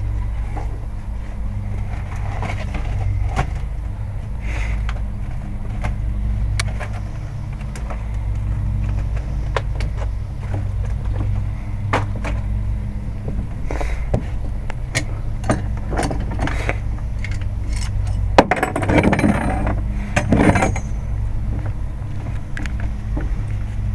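A steady low machine hum, with scattered clicks and knocks of hand work on hardware, and a couple of seconds of louder rushing noise near the end.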